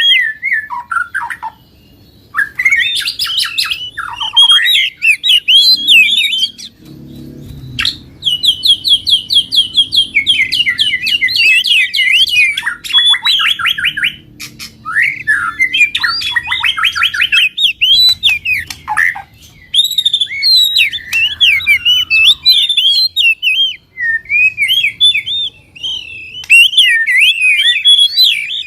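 Songbird song in a fast, aggressive 'fighter' style: loud, nearly unbroken strings of rapid chirps, whistled phrases and trills, with a fast, even rattling trill about a third of the way in. It is a mix of several birds' songs put together as a lure to set caged birds singing.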